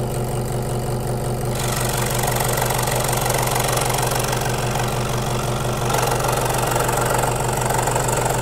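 Electric scroll saw running with a steady hum as its blade moves up and down. About one and a half seconds in, the blade starts cutting through plywood, adding a hissing cutting noise over the hum that grows louder again later on.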